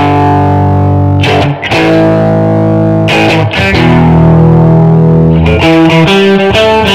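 Background music: distorted guitar chords struck and left ringing, a new chord every one and a half to two seconds, with quicker strumming near the end.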